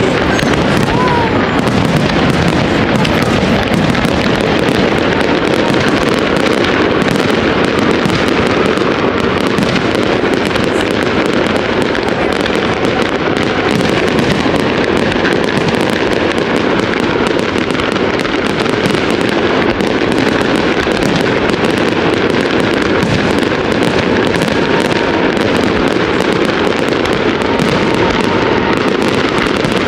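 Fireworks display going off in a dense, unbroken barrage of bangs and crackles, loud and even in level.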